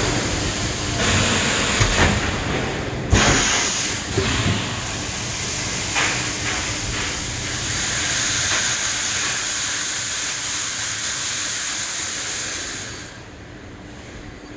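Steel bar mill cold shear and its roller line running: a steady loud hiss over a low machine hum, broken by several sharp metallic knocks, the loudest about three seconds in. The hiss falls away near the end.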